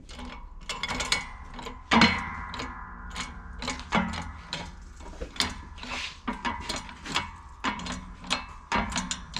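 Steel sockets and a rocker arm clinking and clattering as they are handled and set up on a shop press to push out the old trunnions. Many sharp metallic clicks come at uneven spacing, with one louder clank about two seconds in that rings briefly.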